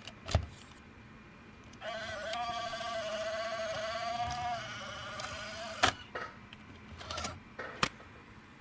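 Sony Digital8 camcorder's tape transport motor whining with a wavering pitch for about four seconds as it tries to rewind the tape, bracketed by sharp clicks of its buttons and tape mechanism. The deck is having trouble rewinding.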